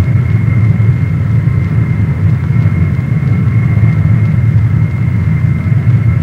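Jet aircraft engines running: a steady low rumble with a thin, even high-pitched whine over it.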